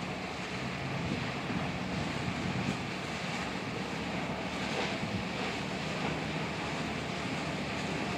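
Small fishing boat running past at speed, its engine a low steady drone under the wash of its wake and wind on the microphone.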